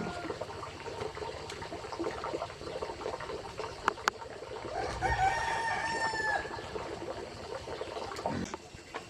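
A rooster crowing once, about five seconds in, over a steady background hiss, with two sharp knocks shortly before it.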